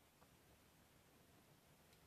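Near silence: faint room tone, with one faint tick just after the start.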